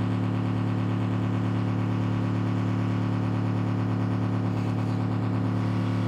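A steady, loud electronic drone of several held tones played over the theatre's sound system as part of the skit's soundtrack.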